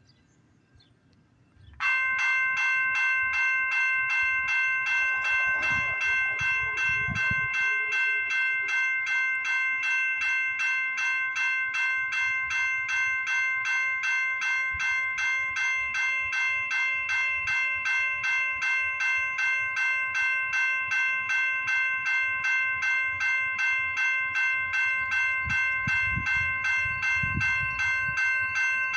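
Railroad grade crossing bell starts about two seconds in and keeps ringing steadily with rapid, evenly spaced strikes: the crossing warning has been triggered by an approaching train.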